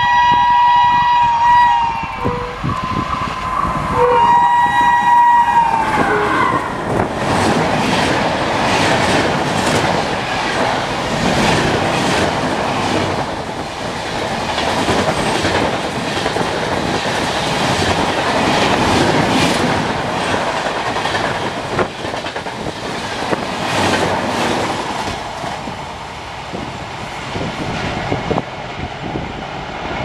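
WAP-4 electric locomotive's low-tone horn: one blast ending about two seconds in, then a second from about four to six seconds that drops in pitch as the locomotive passes. The coaches of the express then rush past at speed with wheels clattering over the rail joints.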